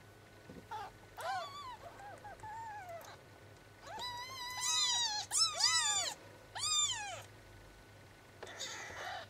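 Four-day-old Bengal kittens mewing: thin, high cries that rise and fall in pitch, coming in several clusters, the loudest and longest about halfway through.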